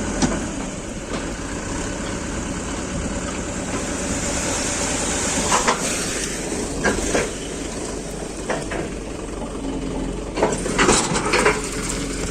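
Diesel engine of a JCB 3DX backhoe loader running steadily under work, with several sharp metallic clanks about halfway through and a quick cluster of them near the end.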